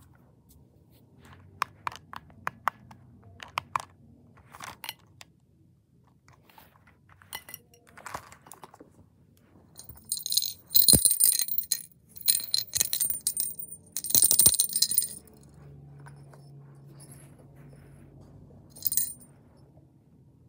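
Several light clicks, then loud bursts of high, jingling rattle from a cat toy being shaken or handled, coming in a cluster over about five seconds and once more briefly near the end.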